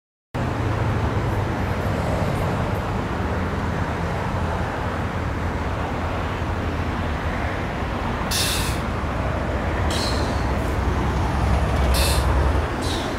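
Street traffic noise: a steady low rumble of passing vehicles, with four short sharp hisses in the last five seconds.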